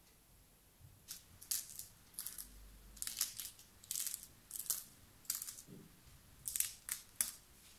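Crisp, flaky baked top layers of a hand-rolled layered milk börek crackling and crunching as fingers press on the pieces. About fifteen short crunches come in small clusters over several seconds, the sign that the crust has baked crisp.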